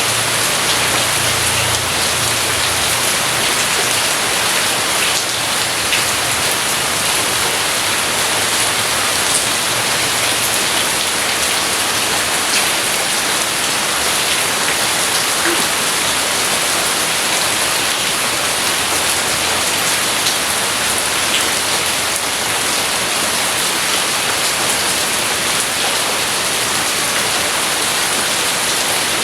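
Steady heavy rain falling, an even dense hiss with scattered drop ticks. A faint low rumble sits under it in the first few seconds.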